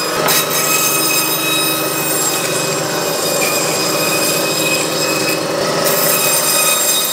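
Meat band saw running steadily, its blade cutting through a bone-in beef rib section.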